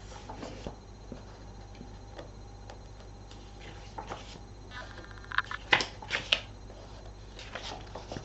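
Pages of a thick pattern book being turned by hand: paper rustling and flicking, with a cluster of louder, sharper page snaps a little past the middle, over a low steady hum.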